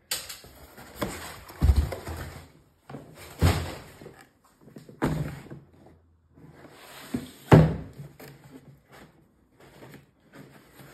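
A heavy cardboard-boxed tool case being handled: cardboard rustling and scraping with four dull thumps, the last and loudest about seven and a half seconds in, as the box is lifted out of a shipping carton and set down on a wooden tabletop.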